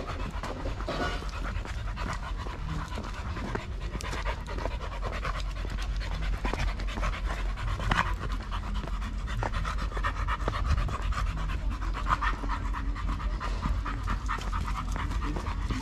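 Dog panting steadily and without a break.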